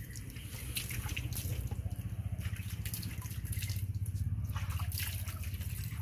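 Water splashing and dripping as hands are rinsed in a plastic tub of water, a scatter of small splashes over a steady low hum.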